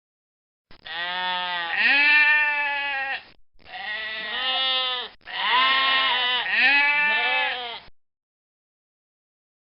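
Goat bleating: three long, quavering bleats in quick succession.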